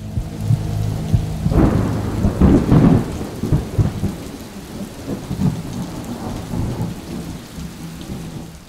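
Thunderstorm sound effect: steady rain with rolling thunder that swells about a second and a half in and slowly fades toward the end.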